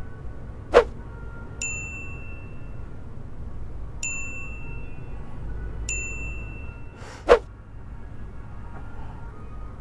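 Three bright, ringing metallic dings about two seconds apart, each dying away within a second, with a sharp knock shortly before the first and another near the end.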